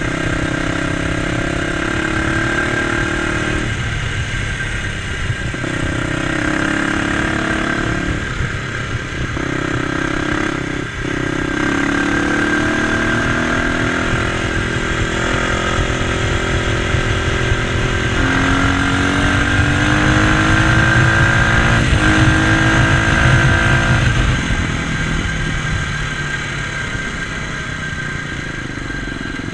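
Dirt bike engine pulling through the gears, its pitch climbing and then dropping back at each gear change. It is loudest on one long climb about two-thirds through, then eases off to a steadier run. Wind rumbles over the microphone.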